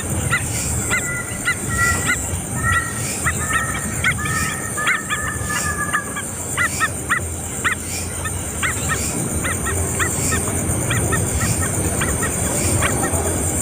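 A bird calling in a run of short, repeated chirps, with several longer two-pitch notes in the first half, over a steady high hiss and a low rumble.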